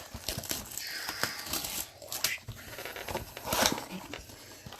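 Crinkly plastic wrapping of trading card packaging being torn open and crumpled: an irregular run of tearing and crinkling rustles.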